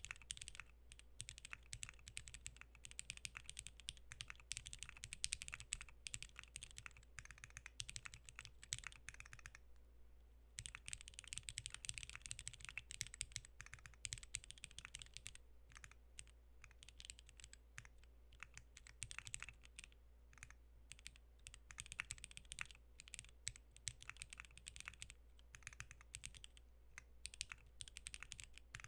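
Typing on a Maggio60 custom mechanical keyboard with lubed Jwick Black linear switches, a half carbon-fibre plate and DCS keycaps: a continuous stream of keystrokes, with a brief pause about ten seconds in.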